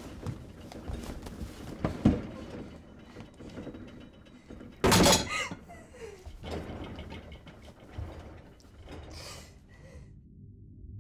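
Sounds of a physical struggle: scattered thumps, knocks and rustling. About five seconds in comes a loud short cry, the loudest sound here. Near the end these sounds cut off and a low steady music drone begins.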